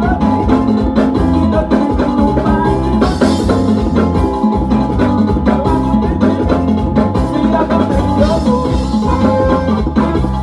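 Loud music with a steady, evenly spaced drum beat and percussion.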